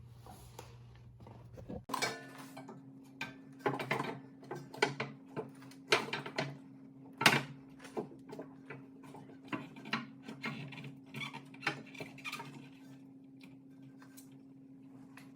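Irregular metal clanks and knocks of tools and parts while a new rear coil spring is fitted into a Ford Mustang's rear suspension, with one sharp clank about seven seconds in. A steady low hum runs underneath from about two seconds in.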